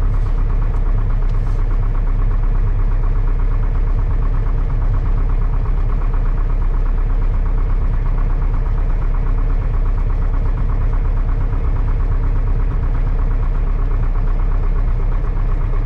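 Piper Cherokee 140's four-cylinder Lycoming engine and propeller running steadily, heard from inside the cockpit.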